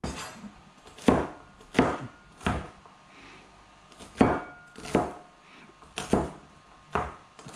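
Kitchen knife chopping food on a plastic cutting board: about nine sharp knocks, roughly one every three-quarters of a second, with a short pause in the middle.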